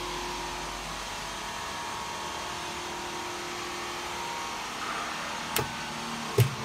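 Steady whirring machine hum, with two sharp clicks a little under a second apart near the end from pushbuttons being pressed on a stainless-steel control panel.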